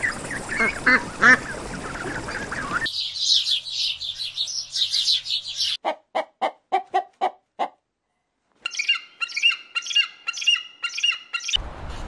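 Bird calls in several abruptly spliced segments: first a burst of mixed calls, then about three seconds in a dense stretch of fast high chirping, then a run of about eight short, evenly spaced lower calls. After a second of silence come repeated squawking calls until near the end.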